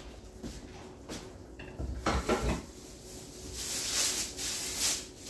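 Kitchen handling sounds: a cutting board, knife and utensils clattering as they are set aside about two seconds in, followed by a high rustling hiss.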